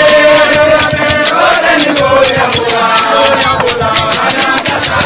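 A group of men's voices chanting together over hand percussion keeping a fast, even beat of several strokes a second.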